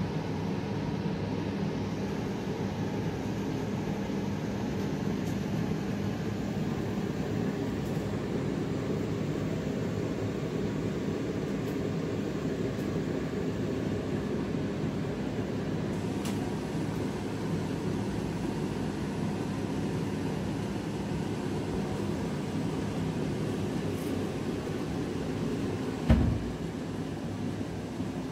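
Steady mechanical hum and background noise, like a running fan or appliance. One thump near the end.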